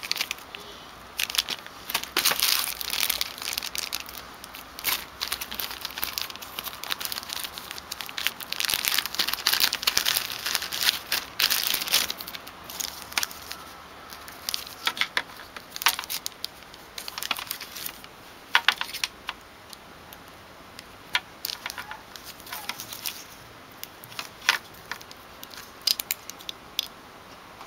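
Thin clear plastic packaging bags crinkling and rustling in irregular bursts as phone accessories are handled and unwrapped, busiest in the first half and sparser later on.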